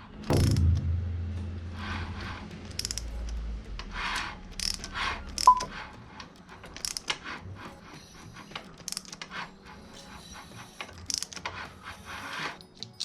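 A thump just after the start, then scattered clicks, clinks and scrapes of small metal parts being handled: the motorcycle oil filter and its engine parts.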